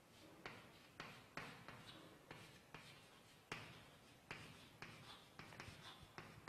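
Chalk writing capital letters on a chalkboard: an irregular run of faint taps and short scratches, two or three a second, as each stroke of chalk meets the board.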